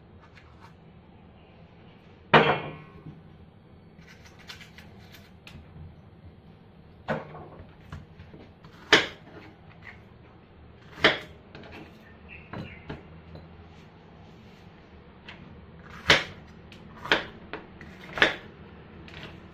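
A kitchen knife knocking against a cutting board as fruit is sliced: about seven short sharp knocks spaced a few seconds apart, the loudest about two seconds in and three close together near the end.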